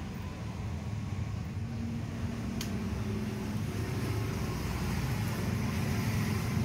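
Steady low rumble of a motor vehicle engine running nearby, growing slightly louder toward the end, with one sharp click about two and a half seconds in.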